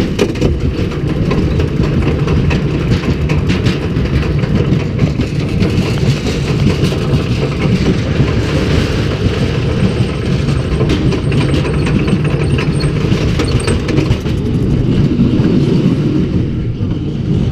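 Roller coaster train being hauled up the lift hill: a steady low rumble of the lift drive and wheels on the track, with rapid clacking that thins out near the end.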